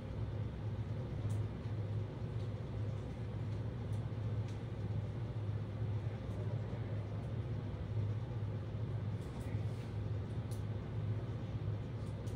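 Room tone: a steady low hum with an even rumble beneath it, and a few faint scattered clicks.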